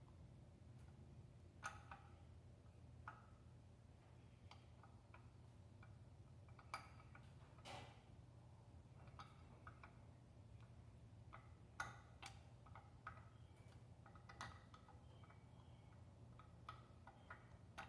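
Faint, irregular metal clicks and ticks from a 13 mm wrench working loose the nuts that hold a Cummins 4BT injection pump, over a low steady hum.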